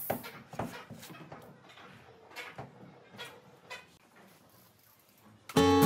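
Light clicks and knocks of a wooden cabinet door being opened and handled on its metal hinges, a dozen or so spread over a few seconds and fading. Near the end, strummed acoustic guitar music comes in loudly.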